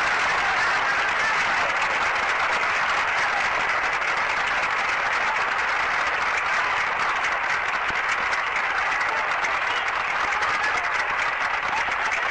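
A large crowd applauding steadily, with single claps standing out more toward the end.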